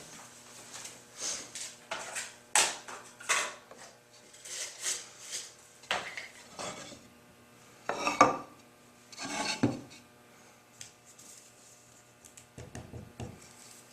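Irregular clatter and knocks of wood and metal objects being handled, a dozen or so short sharp sounds at uneven intervals with quieter rubbing between them.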